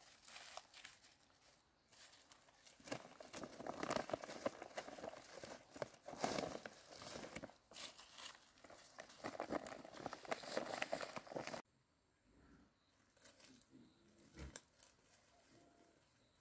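Bundles of long leaves and a woven plastic sack rustling and crinkling as the leaves are handled and packed into the sack, with many small crackles. About three-quarters of the way through it drops abruptly to a much quieter stretch with faint rustles and a single knock.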